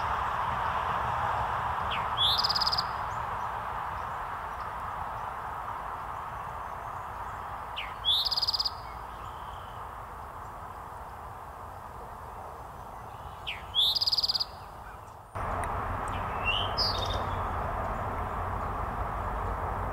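Male eastern towhee singing its 'drink-your-tea' song three times, about six seconds apart: each song is a short lead-in note and then a buzzy trill, over a steady background hiss. After a cut about fifteen seconds in, a few shorter, fainter bird notes.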